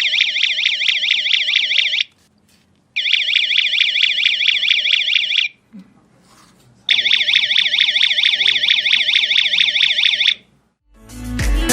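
Electronic smart siren sounding a fast up-and-down warbling alarm tone in three bursts of two to three seconds each, with short pauses between.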